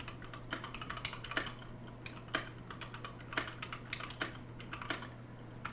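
Typing on a TADA68 mechanical keyboard with very light Gateron Clear linear switches: a quick, irregular patter of soft key strokes, with a louder stroke about once a second.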